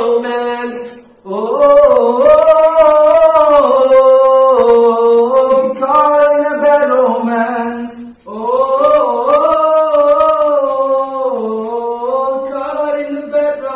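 A man singing a cappella in long, held notes, in two phrases with a short breath about a second in and another about eight seconds in.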